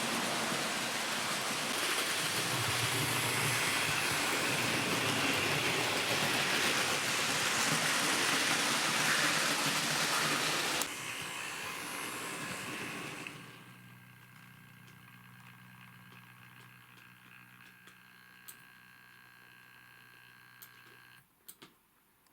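Model train running on the track: a steady whirring rumble that drops sharply about 11 seconds in and dies away by about 13 seconds, leaving only a faint steady hum.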